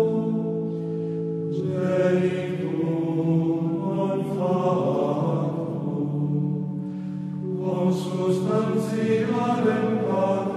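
A choir sings a slow chant. Several voices hold long notes that step to a new pitch every second or two, with a few soft 's' sounds between the notes.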